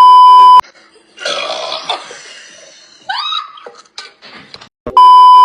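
Two loud steady beeps, each under a second long, one at the start and one near the end. Between them, about a second in, a person lets out a rough burp from the fizz of gulped Sprite, lasting about a second, followed around three seconds in by a shorter sound that rises in pitch.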